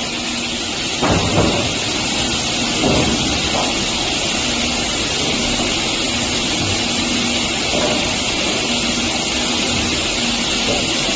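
Multi-head wood cut-off saw machine running with a steady, even noise and a low hum that comes and goes.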